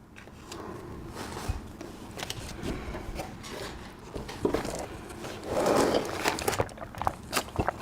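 Scraping and clicking handling noises, louder for a moment about six seconds in.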